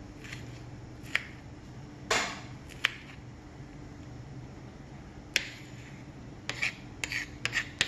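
Kitchen knife chopping a red onion on a wooden cutting board. The blade taps the board in sharp, irregular strikes, a few at first, then a quicker run of chops in the last second or so.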